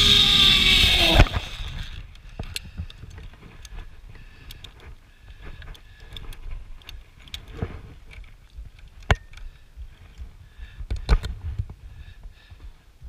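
Zip-line trolley pulleys running along the steel cable, a steady whir that slides down in pitch and stops with a sharp thump about a second in as the rider lands at the platform. After that, scattered clicks and knocks of metal belay clips and gear being handled.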